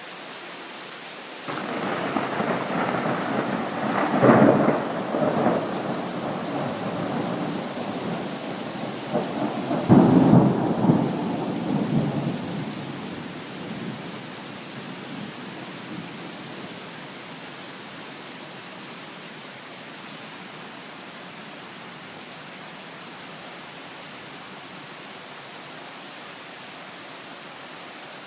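Steady rain falling, with a long roll of thunder that starts a second or so in, swells to two loud peaks and dies away about halfway through, leaving only the rain.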